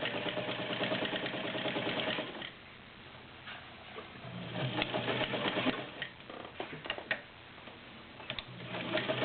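Kenmore Model 50 all-metal sewing machine's 1.2-amp motor running and stitching in three short bursts, with pauses between them that hold a few light clicks.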